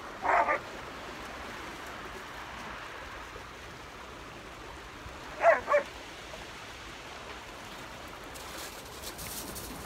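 A dog barks twice, each a quick double bark: once just after the start and again about five and a half seconds in. Between the barks the sea washes steadily.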